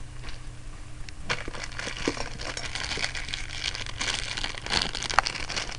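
Plastic packaging crinkling and rustling in irregular bursts with small clicks as camcorder accessories are handled and unwrapped, over a faint steady hum.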